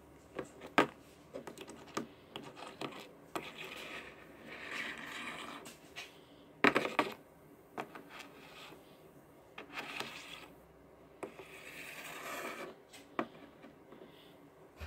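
Plastic toy pet figures and small pencils being handled and set down on a wooden tabletop: scattered clicks and knocks, loudest about a second in and about halfway through, with stretches of scraping and rubbing between.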